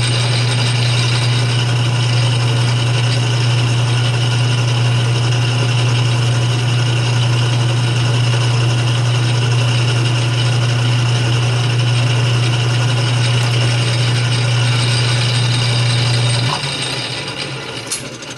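Atlas 6 lathe running with a loud, steady hum and mechanical rattle; it is switched off about sixteen seconds in and winds down.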